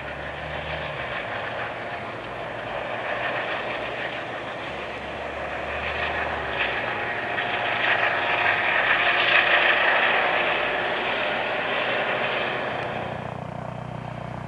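RAF Juno HT1 (Airbus H135) training helicopter flying low past at rooftop height. Its engine and rotor noise grows steadily louder to a peak about nine to ten seconds in, then fades as the helicopter draws away.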